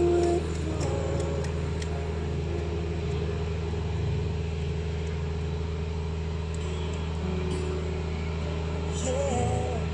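Steady low hum of an engine running, with a few faint crackles from the campfire.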